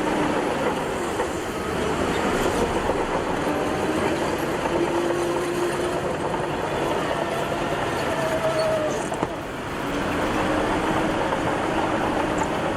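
Crawler bulldozer working: a heavy diesel engine running steadily under load, with high squealing tones from the tracks and running gear that drift in pitch. The noise briefly eases a little before 10 seconds, then picks up again.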